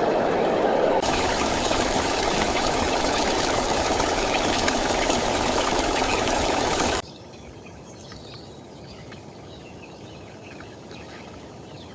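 Heavy, steady rain noise that cuts off suddenly about seven seconds in, leaving a much quieter patter of light rain with faint scattered drips.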